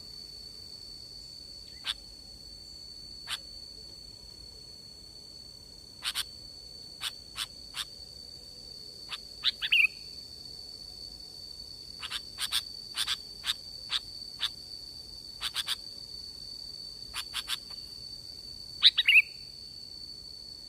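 Sooty-headed bulbul (kutilang) calling: short sharp chips at irregular intervals, some in quick pairs or threes, with a slurred falling call about halfway through and again near the end. A steady high-pitched tone runs beneath the calls.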